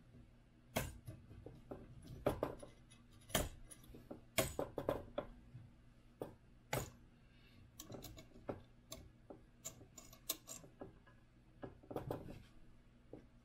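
Handling noise from a Voron V0 3D printer's bed and frame: irregular light clicks and taps of small plastic and metal parts as hands fit the bed and push its wiring through, with a few sharper knocks scattered through.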